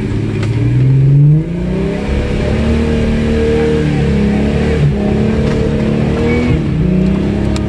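Off-road vehicle's engine revving under load on a steep dirt climb. It rises in pitch over the first second and a half, then holds a high, fairly steady note with small wavers.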